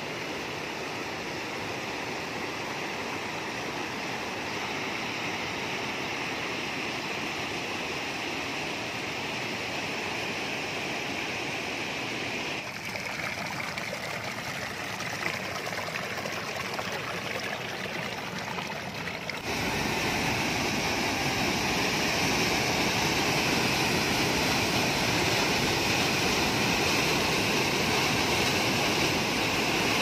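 Rushing water of river rapids and a waterfall pouring over rock ledges, a steady noise of white water. It changes abruptly twice, about 12 and 19 seconds in, and is louder for the last third.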